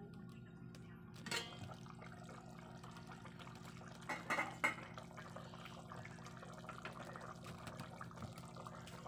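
Pork humba simmering in a pot, a soft bubbling and crackling over a steady low hum, with a few clinks of the pot's glass lid about a second and four seconds in.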